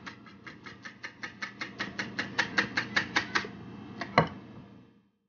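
Wire whisk beating batter in a ceramic bowl, its wires clicking against the bowl about six times a second and getting louder, then stopping; one louder knock follows about four seconds in.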